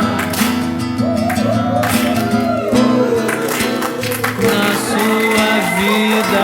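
Live acoustic bar music: a steady instrumental passage with strummed acoustic guitar carrying the rhythm and a gliding melody line over it, between sung lines.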